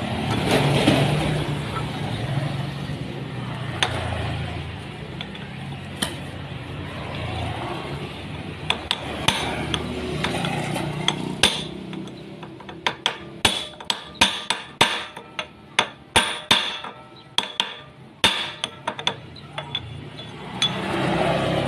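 Hammer tapping on a metal pipe used as a drift, driving a new 6001 camshaft bearing into a Yamaha Aerox 155 cylinder head: sharp metallic clinks, a few scattered at first, then a quick run of about two to three taps a second through the second half.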